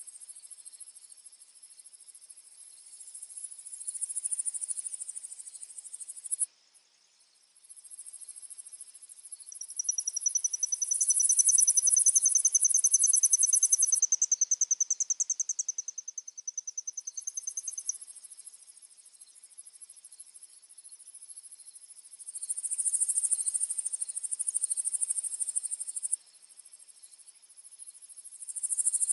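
Insects, crickets among them, trilling in a dense high-pitched chorus that swells and fades. A second thin, steady trill joins from about ten seconds in to about eighteen. The chorus cuts out briefly at about six seconds and drops suddenly near the end.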